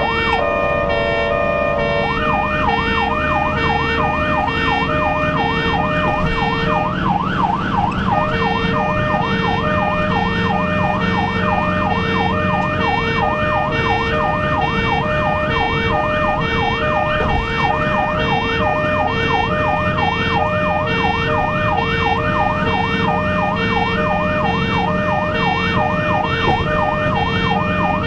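Ambulance siren on an urgent run, heard from inside the cab: a two-tone call switches about two seconds in to a fast rising-and-falling yelp that keeps going, over steady road and engine noise at highway speed.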